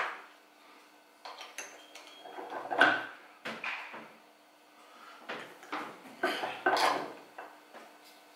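Cast-iron hand arbor press and small metal tooling clacking and clinking as a fitting is pressed into a kydex sheath: a series of sharp metallic clicks, loudest about three seconds in.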